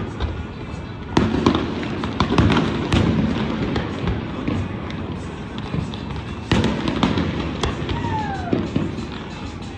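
Fireworks display: loud booms about a second in, near three seconds and around six and a half seconds, with dense crackling between them.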